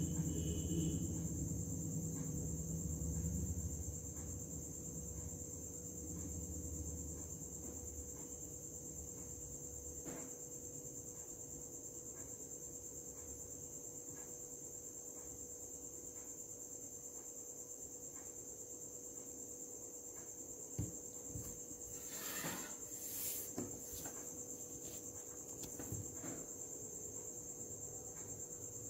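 A steady high-pitched tone continues throughout, with faint background music fading out over the first few seconds. A few light clicks and rustles come about two-thirds of the way in.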